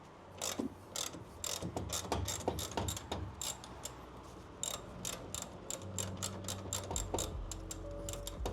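Socket ratchet wrench clicking in quick runs as bolts on a Porsche 912's rear suspension are loosened. Steady low music tones fade in about six seconds in.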